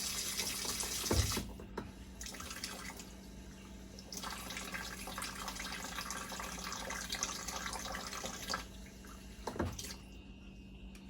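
Kitchen tap running twice, first stopping about a second and a half in and then running again for about four and a half seconds, as water is measured out by the tablespoon. A short knock comes just before the first stop and another near the end.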